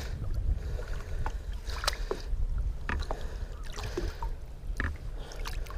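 Lake water splashing and lapping against hands and a muskellunge held alongside a boat for release, with scattered small splashes and drips over a steady low rumble.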